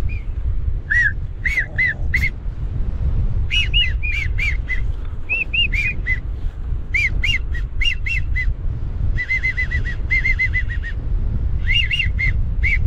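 Whistled duck calls: short, arching whistle notes repeated in groups of three to six, with a fast run of a dozen or so notes about nine seconds in. Under them, a steady low rumble of wind on the microphone.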